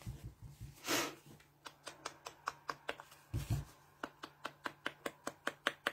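Scissors snipping through a sheet of designer paper, a run of short sharp clicks about five a second, after a rustle of the paper being handled.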